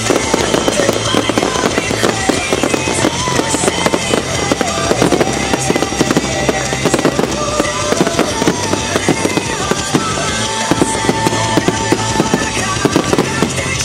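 Fireworks going off in a dense, continuous crackle of rapid pops and bangs, with music playing underneath.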